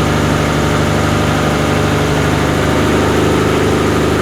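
A riverboat's engine running steadily under way, a deep even drone that grows a little stronger about three seconds in.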